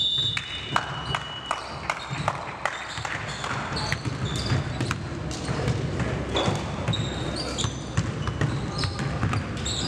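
Gym court sounds: a basketball bouncing on the hardwood floor at irregular intervals, short sneaker squeaks, and a low murmur of voices.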